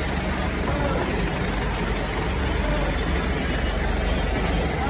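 Truck engine idling steadily, a constant low hum under an even mechanical rumble.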